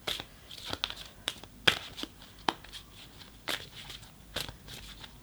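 Tarot cards being handled and laid out: a string of irregular crisp snaps and rustles of card stock, the sharpest a little under two seconds in.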